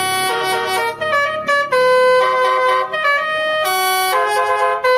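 Upbeat background music with a brass-like lead melody, its notes changing every fraction of a second.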